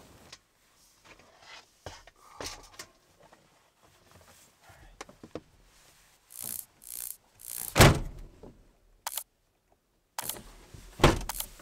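Scattered knocks, clunks and rustling of a person climbing into a truck-cap camper and shifting about in the cramped space. A heavy thud about eight seconds in is the loudest sound, and another comes near the end.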